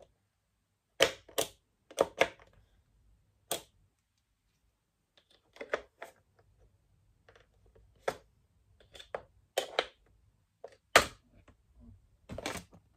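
Hard plastic parts of a white perforated flat-pack storage rack being handled and fitted together: an irregular series of sharp clicks and knocks of plastic on plastic, loudest about a second in and again near the end.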